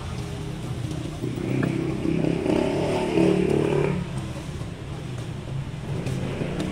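A motor vehicle on the road, its engine running steadily, growing louder about a second in and fading again after about four seconds as it passes.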